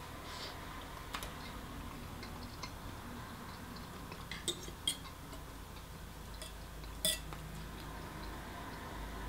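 Cutlery clinking and tapping against dishes while eating: scattered light clicks, a few close together around the middle and a louder clink about seven seconds in.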